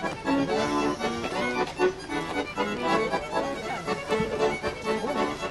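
Romanian folk music with an accordion carrying the tune over a steady pulse.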